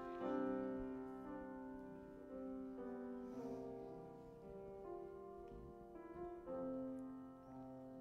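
Soft piano music: slow, held chords that change about once a second.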